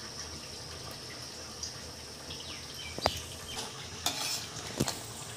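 Metal ladle stirring cooked biryani rice in a large metal pot, with soft scraping and two sharp clinks of the ladle against the pot, about three seconds in and near the end.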